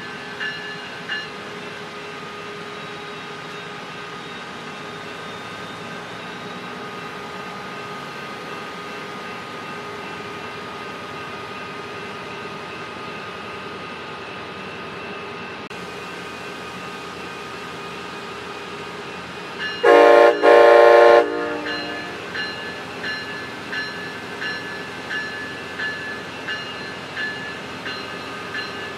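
Train running along the track with a steady rumble of wheels on rail and some held ringing tones. About 20 seconds in, a locomotive horn sounds two short blasts. After that, wheel clicks come about once a second.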